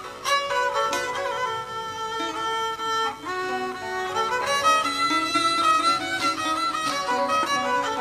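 Music led by a violin playing a melody with sliding notes.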